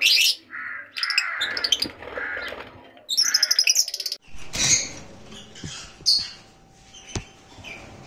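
A group of young green lovebirds chirping and screeching: sharp high calls at the start, a rapid chattering run about three seconds in, then softer scattered chirps.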